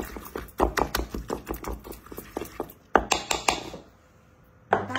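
Pestle grinding and knocking in a mortar, working coarse pesto of hazelnuts, parsley and olive oil: a run of quick knocks and scrapes that stops about three and a half seconds in, then one louder knock near the end.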